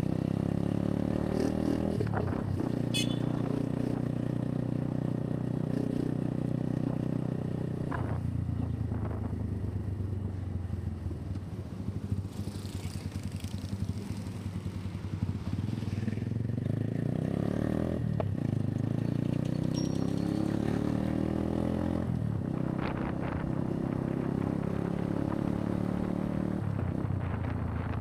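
Motorcycle engine heard from the rider's seat, its pitch rising and falling as the bike speeds up and slows in traffic; it drops quieter and lower around the middle, then picks up again. A few sharp knocks come through now and then.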